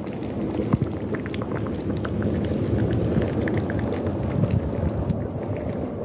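Thick tomato and vegetable mixture boiling in a kazan over a wood fire: a steady bubbling with many small scattered pops.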